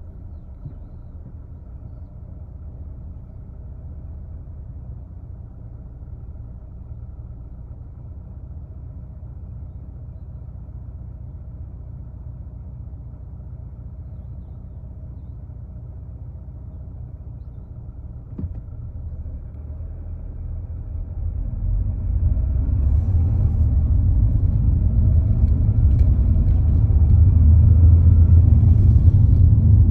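Low rumble inside a car's cabin. It stays quiet and steady while the car waits at a red light, then grows louder from about two-thirds of the way in as the car pulls away and road noise builds.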